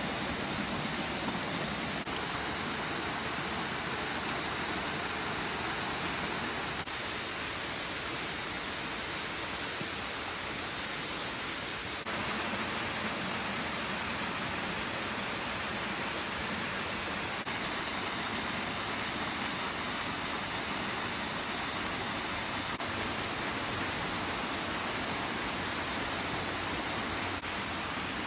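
Hill stream water rushing steadily, an even, unbroken hiss of flowing water.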